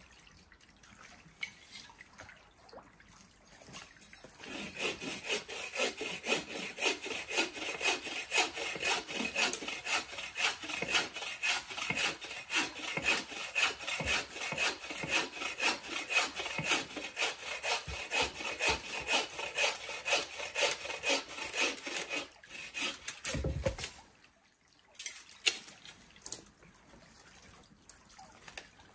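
Hand saw cutting through dry hard maple: a steady rhythm of rasping back-and-forth strokes that goes on for nearly twenty seconds and then stops, followed by a dull thump.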